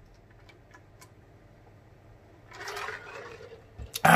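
A person drinking from a large plastic jug, faint gulps at first, then a breathy exhale about two and a half seconds in and a loud, open-mouthed breathy 'ahh' near the end.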